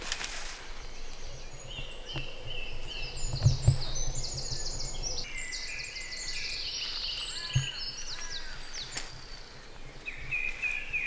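Woodland songbirds singing: several birds with quick overlapping chirps and trills, with a few soft low knocks.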